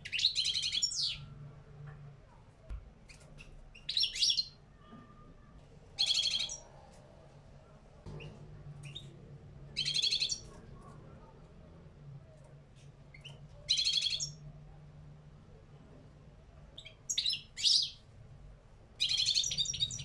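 Caged European goldfinch of the parva race singing short twittering, trilled phrases of about half a second to a second each, repeated every two to four seconds with pauses between; near the end two phrases come close together.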